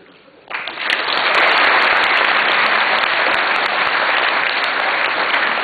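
Audience applauding, breaking out suddenly about half a second in and carrying on steadily.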